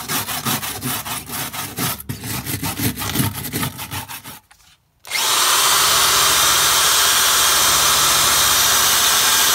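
Power drill spinning a wire brush against rusty sheet metal to scrub off grime. For about four seconds it makes a rough, uneven scrubbing rattle; after a short break it runs again with a loud, steady hiss.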